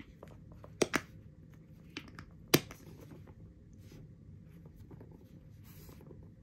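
Handling of a Louis Vuitton Papillon Trunk bag: a few sharp clicks and taps from its metal hardware. Two come close together about a second in, and the loudest about two and a half seconds in, over quiet room tone.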